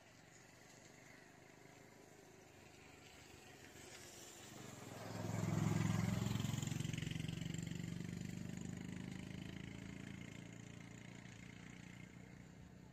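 A motor vehicle passing by: its engine hum and road noise build up, are loudest about five or six seconds in, then fade away slowly.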